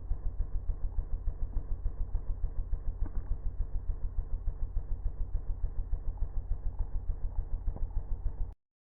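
Wet thermoacoustic tailpipe engine running, giving an even, steady beat of low pulses at about six or seven a second. The sound cuts off abruptly near the end.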